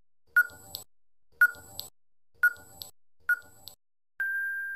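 Quiz countdown timer sound effect: four ticks about a second apart, each a sharp click with a weaker second click just after it. About four seconds in, a steady high beep sounds for nearly a second, marking time up.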